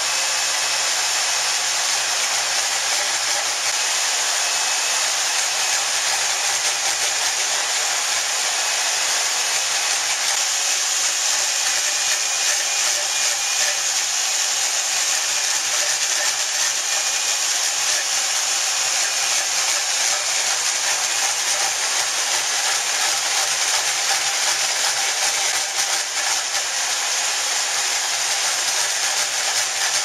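Portable boring bar's drive running steadily while a York snap ring grooving tool cuts a snap ring groove inside a bore: an even, hissing whir with no breaks.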